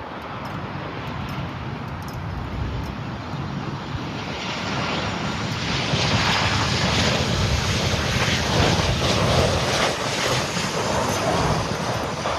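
A jet airliner passing over, its engine noise swelling from about four seconds in and staying loud through the second half.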